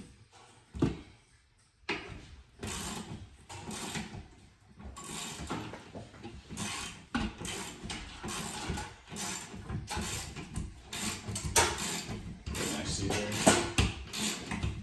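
Rapid, irregular mechanical clicking and rattling of tools and hardware at work on a wall mount. It starts about two seconds in and goes on, busier toward the end.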